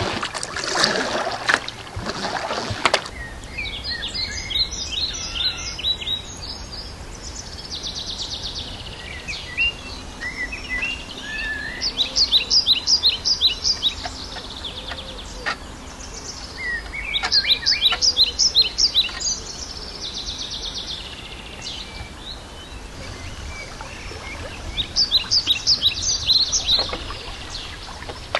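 Kayak paddle strokes splashing in the water for the first few seconds, then a songbird singing: four short bursts of rapid high notes, each about two seconds long and several seconds apart.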